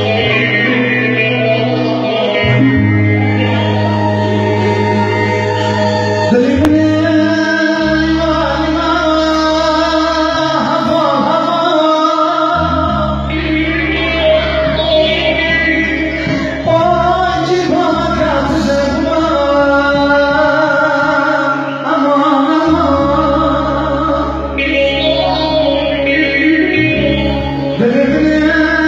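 Kurdish wedding music: a singer's ornamented, wavering vocal line over sustained low accompaniment chords that change every few seconds.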